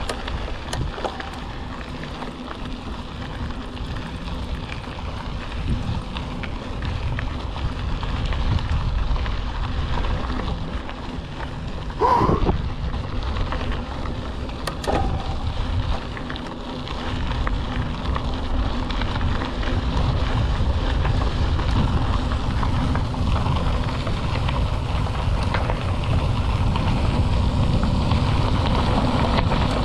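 Mountain bike rolling fast down a gravel road: tyres crunching and rattling over loose stones, with wind buffeting the microphone, getting louder in the second half. The front suspension fork is locked out, so the bike takes the bumps rigidly. A brief squeal about twelve seconds in is the loudest moment.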